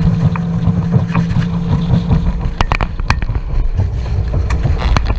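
Small aluminum boat's outboard motor running with a steady hum that fades out about two seconds in, under wind buffeting the microphone, with a few sharp knocks later on.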